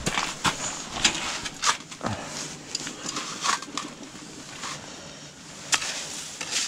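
Rustling with irregular knocks and several sharp clicks: handling noise as the camera is moved about.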